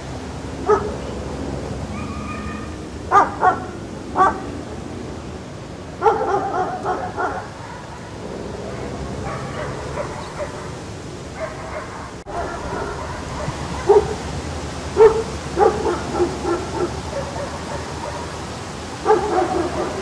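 A dog barking in short, fairly high-pitched calls in irregular bouts, with a few longer drawn-out calls among them, over a steady background hiss.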